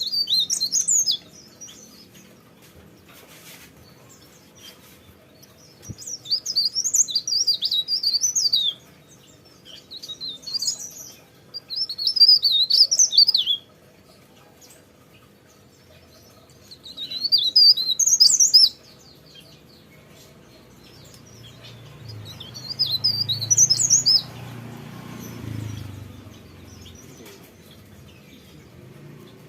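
A cikrak daun songbird singing, repeating short bursts of high, rapid warbling phrases of one to two seconds each, with pauses of a few seconds between them.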